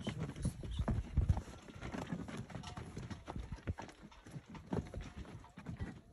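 Footsteps crunching and knocking on a loose, rocky mountain trail, in an irregular walking rhythm of a few steps a second.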